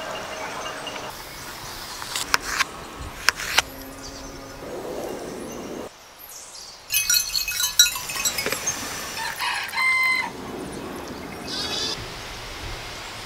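Outdoor rural soundscape of animal and bird calls: scattered calls and clicks, then a busier run of short pitched calls from about seven seconds in, with a longer held call near ten seconds.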